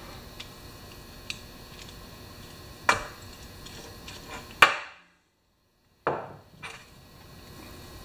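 Small metal tools clicking against a lawnmower carburetor on a steel workbench, with a few sharp knocks about three, four and a half and six seconds in. The loudest knock is followed by about a second of dead silence.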